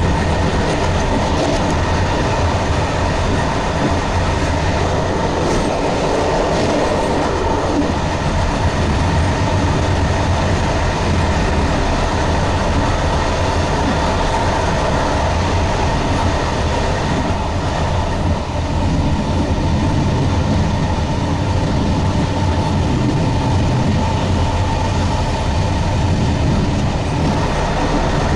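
Train running along the track at speed, heard from the locomotive cab: a steady, loud rumble of wheels on rail with machinery noise and a few faint steady tones.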